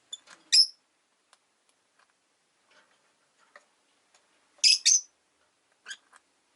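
Rosy-faced lovebirds giving short, sharp, high-pitched chirps: a pair right at the start, a loud double chirp about two-thirds through, and two softer ones near the end, with faint ticks between.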